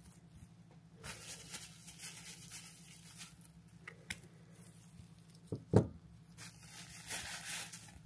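Nitrile gloves rustling and crinkling while hands handle a disassembled SRAM Eagle GX rear derailleur, with a few small clicks. One sharp knock a little before six seconds in, as a part is set down or tapped.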